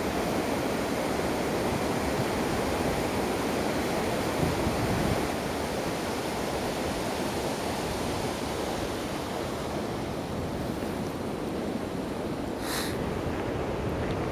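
Steady rushing outdoor noise on a compact camera's built-in microphone, with a short high scrape near the end.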